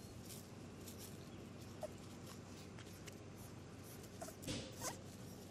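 English bulldog puppy playing with a toy bone, giving a few short rising squeaks, the loudest two close together near the end, over soft scuffing on the blanket.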